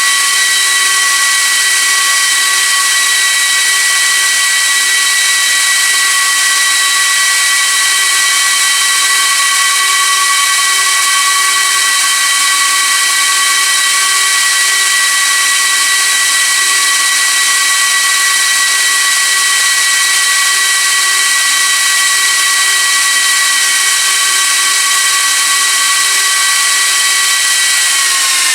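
Gigabyte R180-F34 1U server's cooling fans running at high speed, a loud steady whine over a rushing hiss, while the machine tries to POST. Near the end the whine drops in pitch as the fans slow down.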